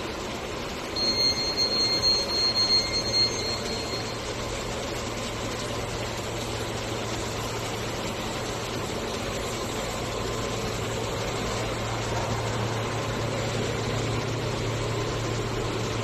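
Steady hum and hiss of running cable-factory machinery, with a high, thin whine about a second in that pulses for a couple of seconds and stops.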